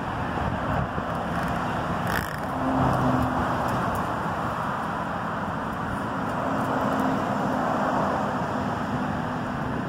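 Steady engine noise of a passing vehicle, with a low hum that comes and goes.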